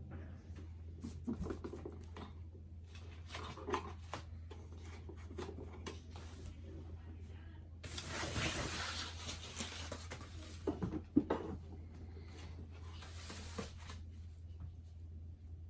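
Packaging being handled during an unboxing: scattered clicks and knocks, with a couple of seconds of rustling about eight seconds in and again briefly near the end, over a steady low hum.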